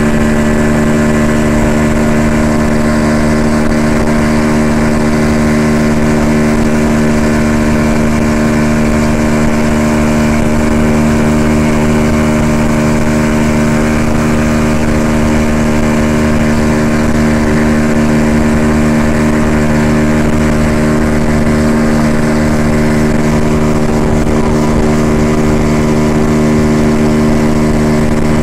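A 40 hp Yamaha outboard motor running at a steady speed, pulling a rider on a tow line, with an even, unchanging pitch.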